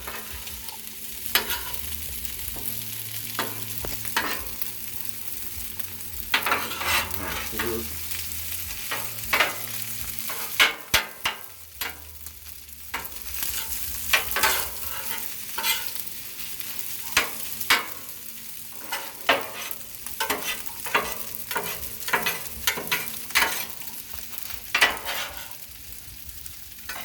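Chicken and pork fried rice sizzling on a Blackstone flat-top griddle, with many short scrapes and clicks scattered through the steady hiss.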